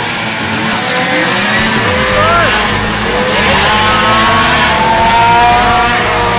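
Several compact pickup race trucks' engines running hard as the pack passes on the oval track, their pitches rising and falling against one another. The deeper engine rumble grows louder about two seconds in.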